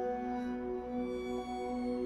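Calm ambient background music: soft held notes that swell gently and slowly.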